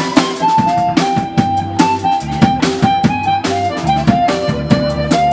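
Live blues band playing: an amplified harmonica plays a lead line of held notes over a steady drum-kit beat, electric bass and electric guitar.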